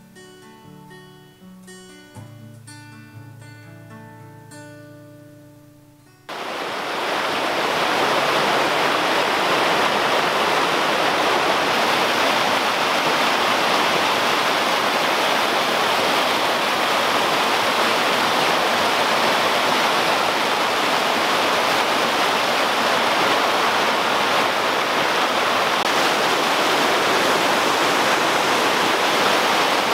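Acoustic guitar music fading out, then, about six seconds in, the steady rush of a small waterfall cascading over rocks takes over suddenly.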